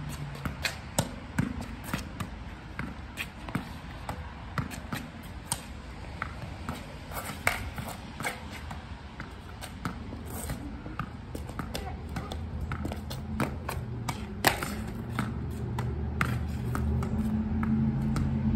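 Tennis ball rallied off a stone wall with a racket: repeated sharp pops of racket strikes, the ball hitting the wall and bouncing on the ground, uneven in strength, with one louder hit about three-quarters of the way through. A low rumble builds underneath near the end.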